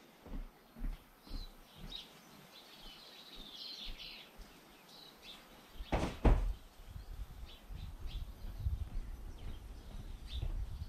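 Birds chirping in short high calls, with a few soft knocks early on and one loud thud about six seconds in; a low rumble runs underneath after the thud.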